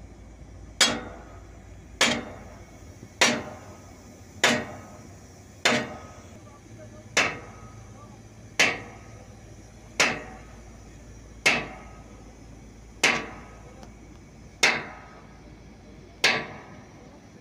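Slow, steady hammer blows on steel, about twelve strikes roughly a second and a quarter apart, gradually slowing, each with a short metallic ring, struck during heavy-equipment repair work on an excavator's bucket linkage.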